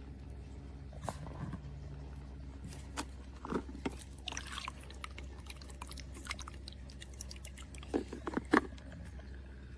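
Steady low hum of a small brushless USB submersible water pump running in a dog's water bowl but barely moving any water: the pump is failing. Scattered clicks and taps come over the hum, the loudest a few quick clicks near the end.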